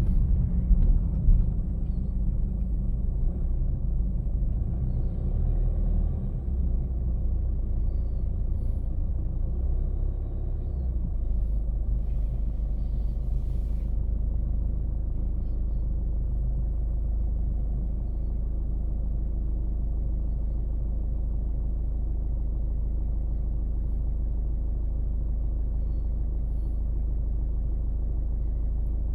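Car driving on city streets: a steady low rumble of engine and road noise, a little uneven for the first ten seconds or so, then even.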